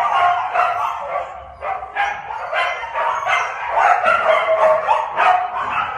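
Husky vocalizing in drawn-out whines and howls, with a short break about a second and a half in.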